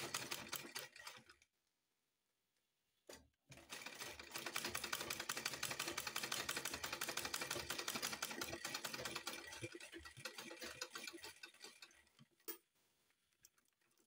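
Manual black-head sewing machine stitching at a fast, even run of ticks, tacking an invisible zipper onto fabric. It stops after about a second and a half, gives a click, runs again for about eight seconds, and winds down about twelve seconds in, with one more click after.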